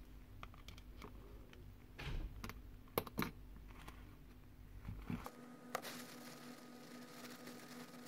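Scattered small clicks and light scrapes of a screwdriver tip working at the steel self-adjusting sleeve bushing in the fan motor's end shield, prying it to get it out for cleaning.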